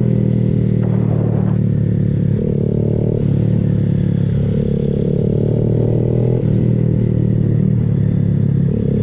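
Honda Grom's small single-cylinder engine through an aftermarket Kemimoto exhaust, running steadily while riding, with the engine note shifting a few times as the throttle changes.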